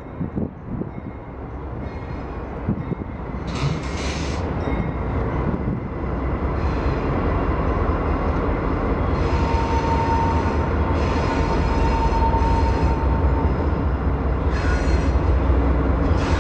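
Diesel-electric freight locomotives approaching, their low engine rumble growing steadily louder. Short high squeals of wheels on the curving track come and go every few seconds, with a thin steady squeal in the second half.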